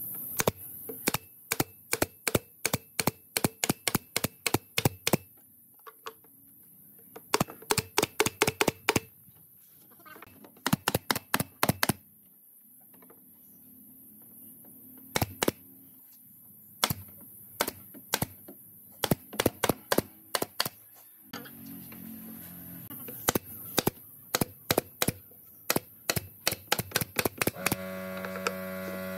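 Pneumatic nailer firing in quick runs of sharp shots, driving brads into pine boards, with short pauses between the runs.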